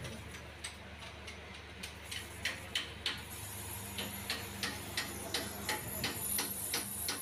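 Cylinder boring machine running, boring a Honda CG125's new cylinder sleeve out to the piston's size: a steady low motor hum with sharp ticks, scattered at first and then regular at about three a second from about four seconds in, and a thin high whine coming in about three seconds in.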